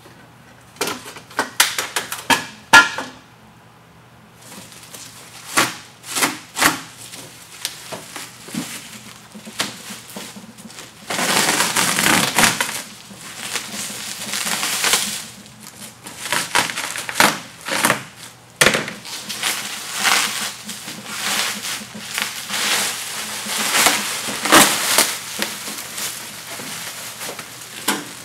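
Bubble wrap crinkling and crackling as it is slit with a utility knife and pulled off long shutter parts: irregular sharp crackles, with a longer tearing rustle about eleven seconds in.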